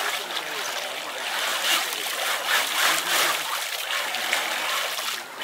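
Muddy water splashing and trickling, churned by the spinning wheels of a scale radio-controlled mega truck working through a water-filled hole.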